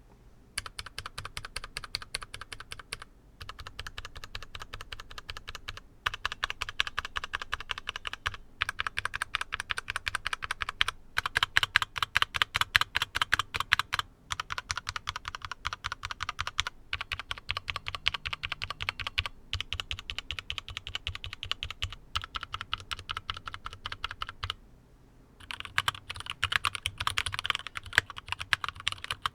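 Fast, continuous typing on a mechanical keyboard with stock Gateron Milky Black linear switches: a steady stream of key clacks, broken by a few brief pauses and a longer one near the end.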